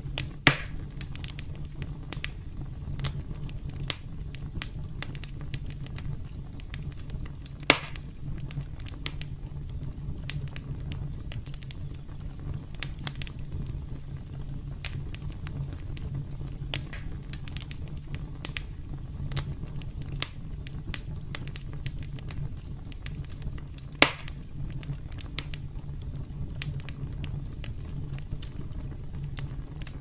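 Wood campfire crackling: many small crackles over a steady low background, with three loud sharp pops, one just after the start, one about 8 seconds in and one about 24 seconds in.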